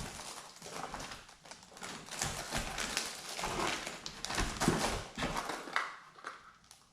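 Hands rummaging through a box of packaged fishing lures: repeated light clacks and knocks of plastic packages with rustling, dying away near the end.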